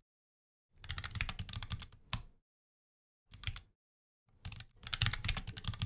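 Typing on a computer keyboard: three bursts of quick keystrokes with short silent pauses between them.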